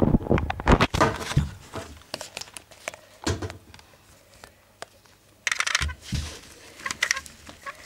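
Handling noise: rustling and scattered clicks and knocks of hands moving small plastic toys about, loudest in the first second and a half, with a burst of crinkly rustling about five and a half seconds in.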